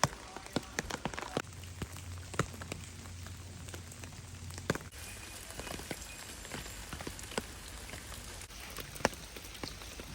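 Rain falling, with irregular sharp drops tapping close by over a steady hiss.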